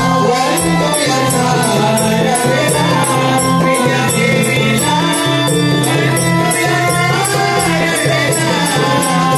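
Live Marathi devotional naman song: a melody over a held low drone, with a quick, even beat of jingling percussion.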